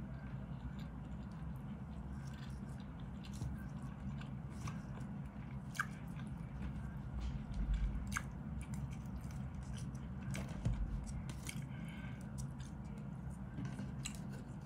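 A person chewing and eating, with plastic forks clicking and scraping against a plastic food container, over a steady low hum.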